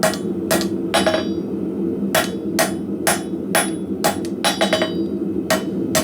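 Hand hammer striking hot spring steel on an anvil, about two blows a second in an uneven rhythm, each with a short metallic ring, as the tapered bar is straightened and its octagonal faces are trued up. A steady low hum runs underneath.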